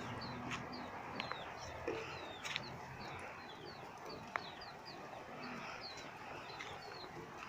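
Birds chirping over and over: short, high, downward-sliding chirps several times a second, with a few faint clicks among them.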